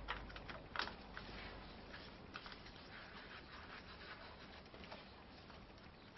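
Faint, scattered clicks and light handling noises of a small metal part being fitted by a gloved hand at a motorcycle's chain guard.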